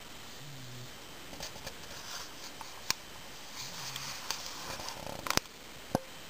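A boxer dog breathing with a short, soft low grunt roughly every three seconds, twice here, along with a few sharp clicks, the loudest near the end.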